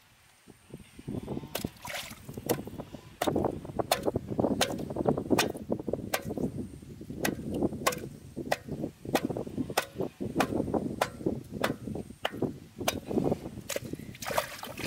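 Water sloshing and splashing in shallow water, with many irregular sharp slaps, starting about a second in.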